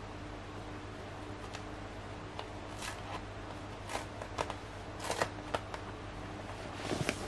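Cardboard and paper packaging of a tablet box rustling and crackling as its paper pull-tab strip is torn along the edge and the box is slid open: a run of short scraping crackles, busiest about four to five seconds in and again near the end.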